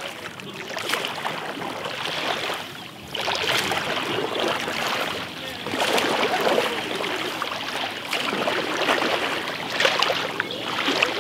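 Stand-up paddle strokes in calm water: splashing and sloshing that swells with each stroke, about every two to three seconds, as the board is paddled and turned.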